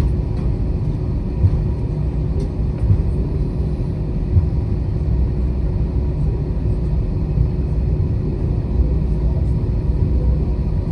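Airbus A321 cabin noise while taxiing after landing: a steady low rumble with a faint constant hum, and a few light bumps.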